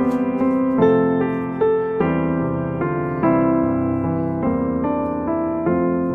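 Background piano music: a slow melody of single notes and chords, a new note struck every half-second to a second and fading away.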